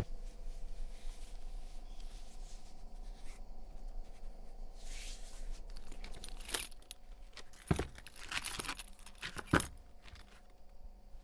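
A faint steady hum, then from about six and a half seconds in four or five sharp separate clacks: thick-heeled sandals knocking against a stone step as they are slipped off.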